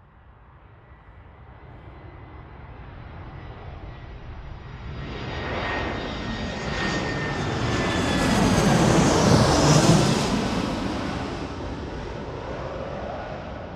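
Commercial airliner flying past: its engines rise from faint to loudest about two-thirds of the way through, then fade as it moves away, with high whining tones that slide down in pitch as it passes.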